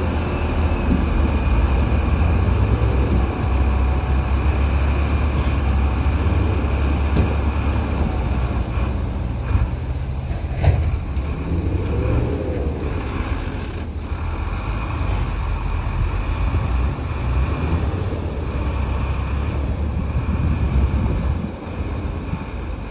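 Heavy diesel earthmoving machinery running steadily with a deep, low rumble, and a couple of sharp clanks near the middle.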